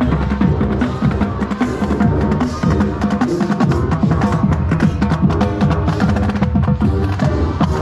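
Marching band playing at full volume: held brass notes with sousaphones on the low end, over a drumline beating quick, dense patterns.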